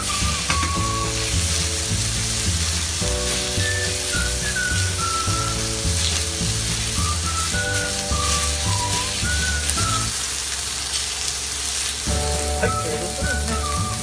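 Chicken gizzards sizzling in hot oil in a frying pan as they are stirred and spread with a spatula. Background music plays over it.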